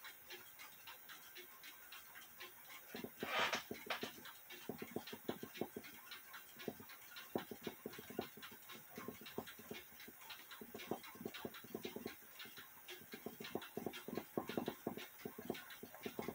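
Faint, quick scrubbing and rustling strokes of a cloth rag rubbing dirt off a small clock part held in the hands, with one louder rub a little after three seconds in.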